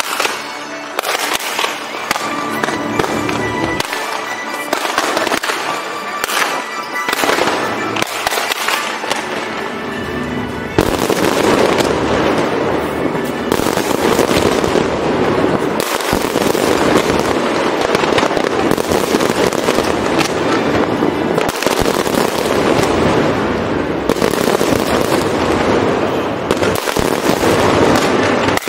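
Fireworks bursting over water, with music in the background at first; about eleven seconds in, the sound jumps to a louder, dense, continuous barrage of explosions.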